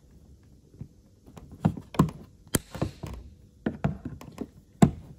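Diagonal wire cutters working on the protruding legs of metal repair staples set in plastic: a series of short, sharp clicks and taps, the sharpest near the end.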